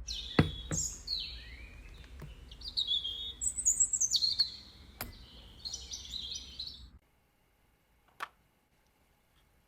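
Small birds chirping in quick gliding phrases, with a few sharp clicks among them. The birdsong cuts off suddenly about seven seconds in, leaving quiet with a single click a second later.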